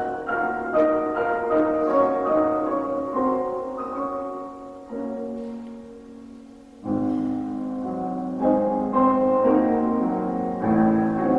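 Piano playing a slow piece. A phrase winds down softly about six seconds in, and a fuller, louder phrase with lower notes begins about a second later.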